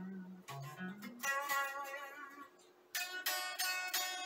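Golden Les Paul-style electric guitar played through a Boss ME-80 multi-effects unit and a small Frahm amplifier. A few low picked notes give way, about a second in, to ringing chords that break off briefly before another chord rings out near the end.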